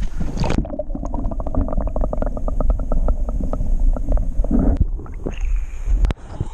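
Sea water sloshing and splashing, then heard from underwater: a muffled low rumble with a fast, even run of faint ticks lasting about four seconds. The sound opens up again near the end as the water is left behind, followed by a sharp click.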